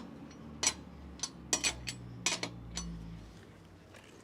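Metal tools being handled: a string of sharp metallic clinks and clicks, about seven of them in the first three seconds, thinning out toward the end, over a faint steady low hum.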